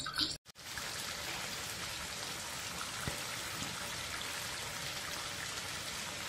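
Mutton karahi gravy sizzling steadily in oil in a wok over a gas flame as it cooks down and thickens, with a light tap about three seconds in.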